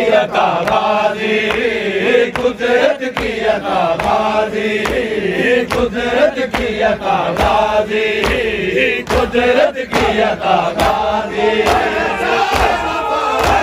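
A group of men chanting a Shia noha (mourning lament) in unison. Sharp slaps of hands on chests (matam) keep a regular beat underneath.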